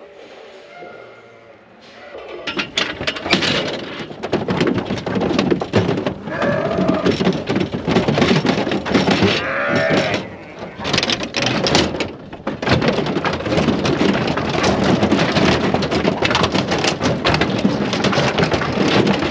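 Many sheep hooves clattering on the metal floor and ramp of a livestock trailer as a flock of ewes runs off it, starting about two seconds in. A sheep bleats twice in the middle.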